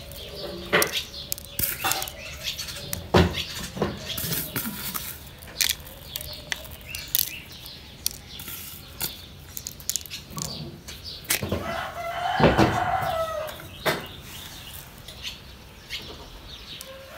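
Chickens: a rooster crows once, a call about two seconds long starting about eleven and a half seconds in, amid clucking and scattered sharp clicks and knocks.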